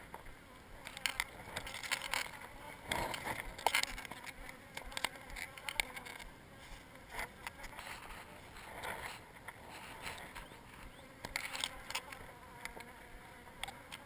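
Honeybees buzzing around their exposed colony and comb in an opened wall cavity, with scattered clicks and rustles of handling.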